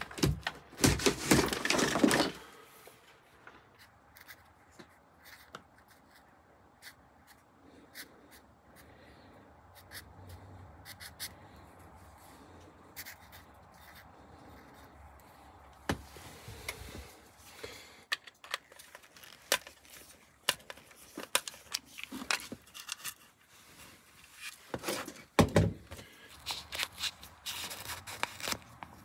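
Hand-work noises of electrical wiring being handled: rustling and scraping of wire for the first couple of seconds, then a quiet stretch with scattered light clicks and taps, and a run of sharper clicks and scrapes near the end.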